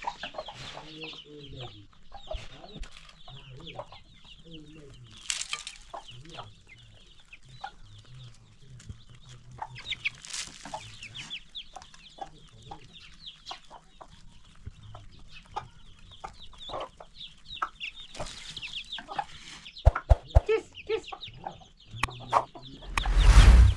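Flock of hens and chicks clucking and peeping: low hen clucks under many short, high chick peeps. A loud rushing noise swells and cuts off near the end.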